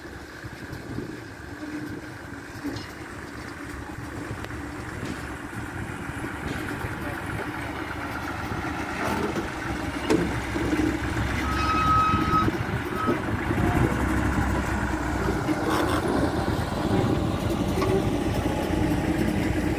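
Hunslet narrow-gauge diesel locomotive running as it propels a coach toward the listener, its engine growing steadily louder. A short high tone sounds about twelve seconds in.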